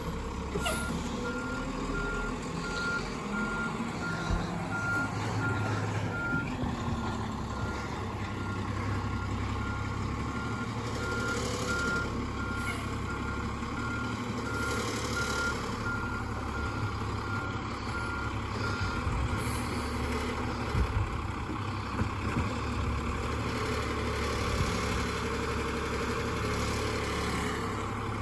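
Garbage truck backing up: its reversing alarm beeps evenly at one pitch over the running engine. The beeping stops about two-thirds of the way through while the engine keeps running.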